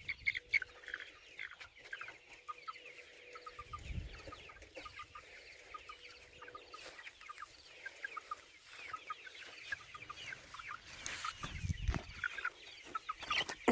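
Chickens clucking and peeping: a steady scatter of short, quick calls from several birds, with a couple of soft low thumps among them.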